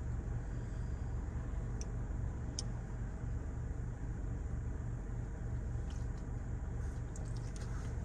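Car running, heard from inside the cabin as a steady low engine hum, with a few faint clicks.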